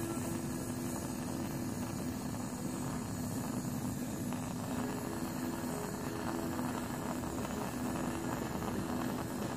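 Propane plumbing torch burning MagneGas2 instead of propane, its flame a steady rush with a low hum, heating a copper pipe joint for soldering.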